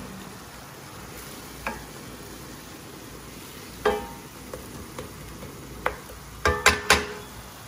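Sliced leeks and sun-dried tomatoes sizzling in a frying pan as a wooden spoon stirs them, the leeks softening. The spoon knocks against the pan now and then, with a quick run of three ringing knocks near the end.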